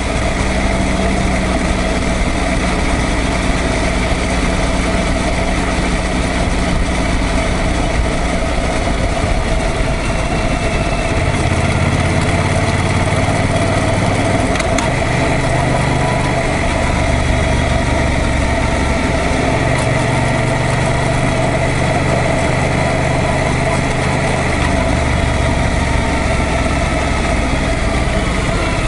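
Yamaha MT-07 motorcycle's parallel-twin engine running under way, its note shifting in steps every few seconds with throttle and gear changes, over a steady rush of wind and road noise.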